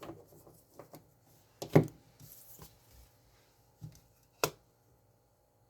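Tarot cards being handled and thrown down onto a surface: a few sharp slaps and taps, the loudest about two seconds in and another near the end, with light ticks between.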